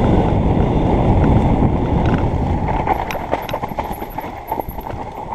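Wind rushing over a helmet-mounted camera microphone on a fast mountain-bike descent, easing off as the bike slows about halfway through. Then the rattles and sharp clicks of the mountain bike over rough trail stand out.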